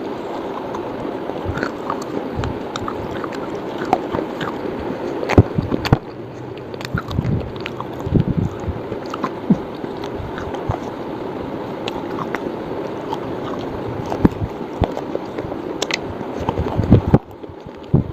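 Slate bar being bitten and chewed, sharp crunches and cracks coming irregularly over a steady background hiss.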